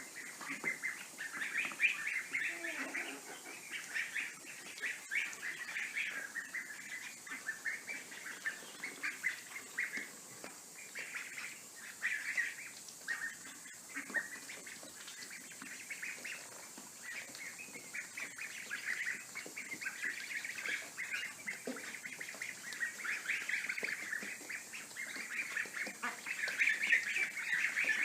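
A group of ducklings peeping, many short high chirps overlapping in a continuous chatter.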